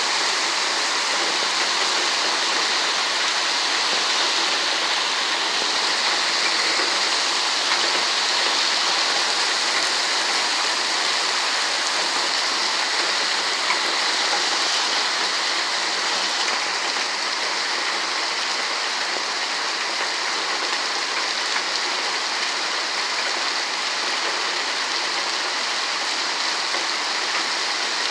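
Heavy rain pouring down steadily in a storm.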